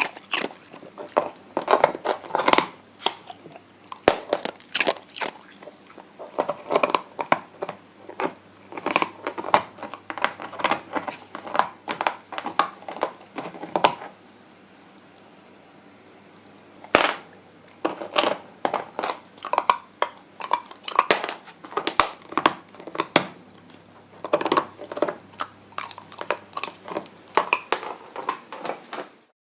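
White Shiba Inu puppy crunching and chewing ice, with rapid irregular crunches and a pause of a few seconds about halfway through before the chewing resumes.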